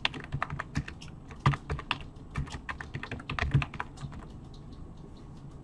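Typing on a computer keyboard: a quick run of keystrokes that thins out to a few faint taps after about four seconds.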